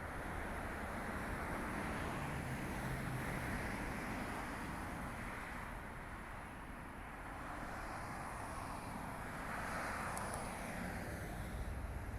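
Distant vehicle noise: a steady rushing hum that swells and eases, louder about a quarter of the way in and again near the end.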